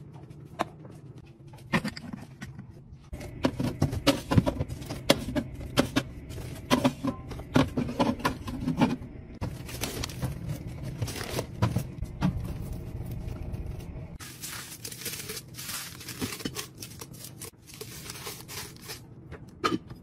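Packaging and containers being handled: a dense run of clicks, knocks and crinkles, with a few seconds of steadier rustling or tearing about two-thirds of the way in.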